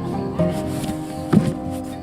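Background music with sustained notes, and a single sharp thump about a second and a half in.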